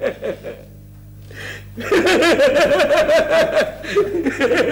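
A man laughing heartily in rapid, pulsing bursts, starting about two seconds in after a short lull.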